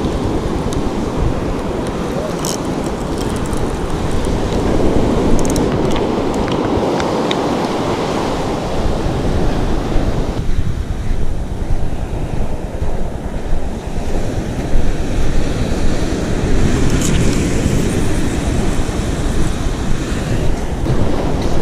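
Waves breaking on a sand beach, with wind buffeting the microphone. About halfway through, the hiss of the surf falls away and a low wind rumble takes over. A few faint clicks sound here and there.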